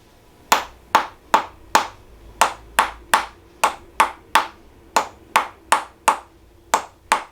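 Chiropractic tapping adjustment on the pelvis: a steady run of short, sharp taps, about two to three a second.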